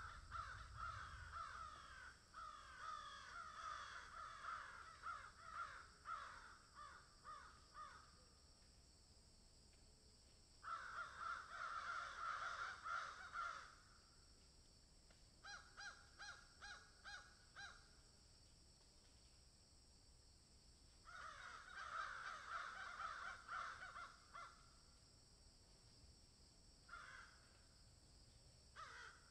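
Crows cawing in bouts, several calls overlapping in the first long bout, then shorter bursts and a run of single caws about two a second, with quiet gaps of a few seconds between bouts.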